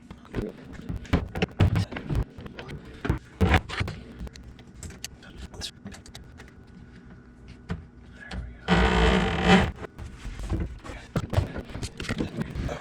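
Scattered knocks, clicks and clatter of hands and tools working on a dishwasher's drain hose connection, with a cordless power tool running in one loud burst of about a second near the end.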